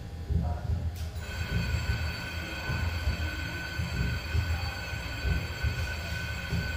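Electronic drone: a low, uneven rumble with several steady high whining tones layered over it that come in suddenly about a second in and hold.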